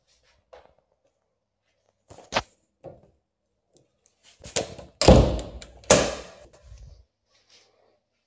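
A room door being handled: a sharp click about two seconds in, then two loud knocks about a second apart near the middle, each with a rattling tail.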